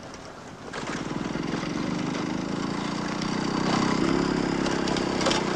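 Small go-kart engine turning over as the kart is push-started: a steady chugging that begins about a second in and grows a little louder, without the engine catching.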